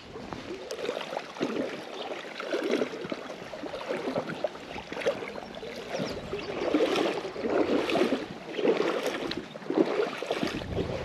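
Footsteps of someone walking along the loch shore, about one step a second.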